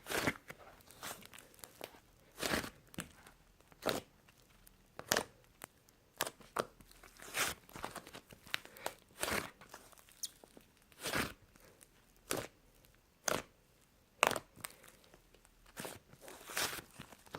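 Fluffy clay slime being squished and pressed by hand: short sticky squelches and crackles, roughly one a second with short pauses between.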